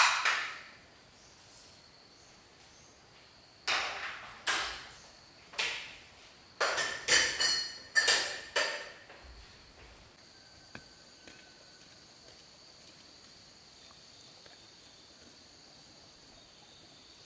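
Handheld power tools clattering and knocking on a tiled floor as they are handled and gathered up: about eight sharp knocks, some in quick pairs, over the first nine seconds, each ringing briefly in the bare room. After that, a faint steady chirring of insects.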